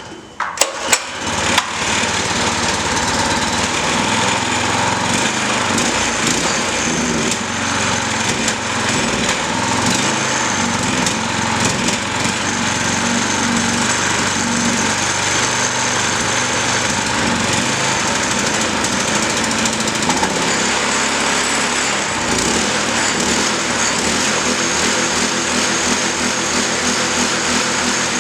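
Predator 212cc single-cylinder four-stroke small engine. A few sharp clicks come in the first second, then the engine catches and runs steadily. It still runs after ten months left out in the rain.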